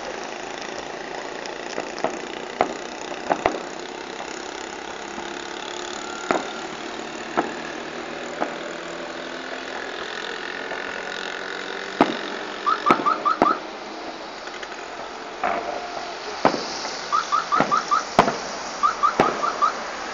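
Fireworks salute going off: single sharp bangs at irregular intervals, with quick runs of rapid pops about two-thirds of the way in and again near the end, over a steady background noise.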